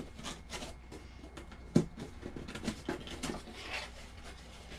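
Small cardboard box being handled and its flaps pulled open: irregular rustling and scraping of cardboard, with one sharp click about two seconds in.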